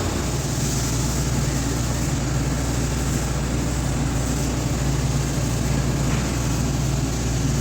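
TIG welding on stainless steel pipe, the arc and welder running steadily: an even electrical hum with a constant hiss over it.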